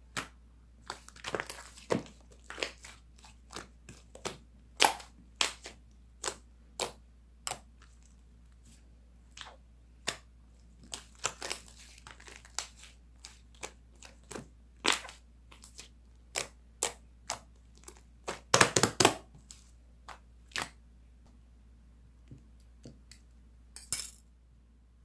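Clear slime being squished and pressed by hand, giving irregular sharp clicking pops, with a quick run of loud crackles about three-quarters of the way through.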